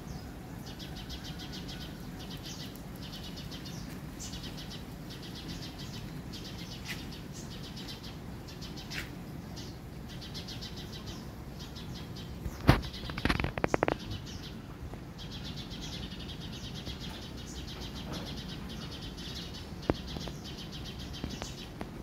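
Outdoor ambience of high chirring calls repeated in short bouts, with a brief cluster of sharp knocks a little past halfway.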